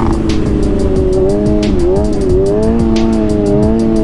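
Kawasaki 636 sportbike's inline-four engine running under way, its pitch rising and falling with the throttle, with a dip about two seconds in.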